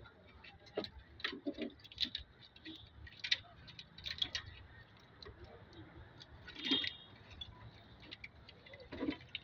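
Hand tools clinking and tapping against metal engine parts: irregular light clicks and knocks, with a louder clank a bit before the last third and another near the end.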